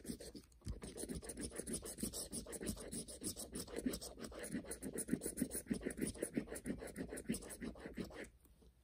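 Scraping the coating off a scratch-off lottery ticket: a quick run of rapid back-and-forth scratching strokes that starts about a second in and stops shortly before the end.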